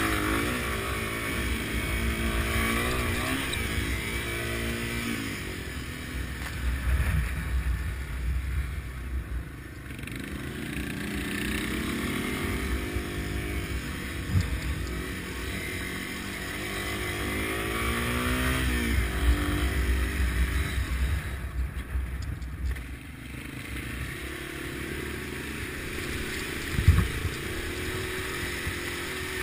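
Dual-sport motorcycle engine running under way, its pitch rising and falling several times as the throttle is opened and closed. A single sharp knock stands out near the end.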